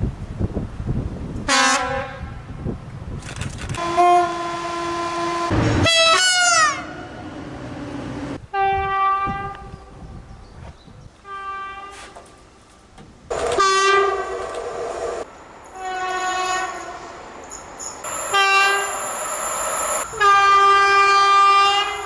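A run of train horns from several different trains, one after another: short toots and longer blasts, mostly sounding two or more notes together. One blast about six seconds in falls in pitch, and a long, loud blast closes the run.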